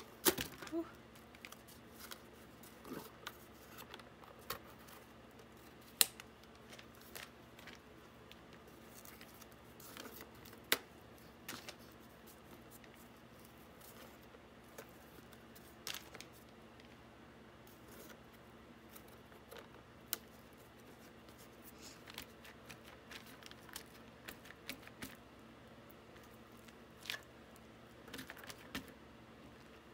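Rubber bands being stretched and wrapped around a small piece of cardboard, with scattered sharp snaps and taps as the bands hit the board, and light rustling of the cardboard.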